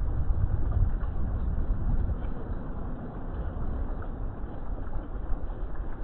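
Garden fountain water splashing steadily over rocks into a koi pond, with a low wind rumble on the microphone that is strongest during the first two seconds.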